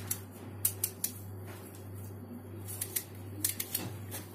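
Kitchen knife shaving the thin green skin off pieces of watermelon rind: scattered light scrapes and clicks, over a steady low hum.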